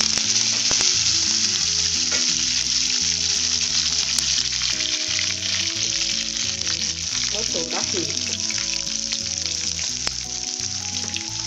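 Hot oil sizzling steadily in a kadai as a tadka of curry leaves, peanuts, dried red chillies and garlic fries, with scattered small crackles. A light background tune of held, stepping notes plays underneath.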